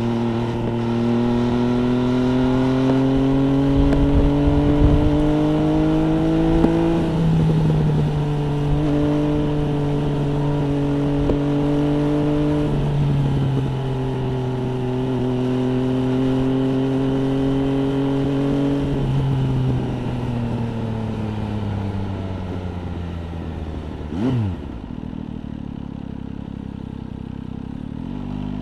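MV Agusta Brutale 800 RR's three-cylinder engine through an FF by Fresco aftermarket exhaust, pulling up through the gears with two upshifts. It then rolls off the throttle with the revs falling away, gives a brief sharp blip near the end, sits at low revs and starts pulling again.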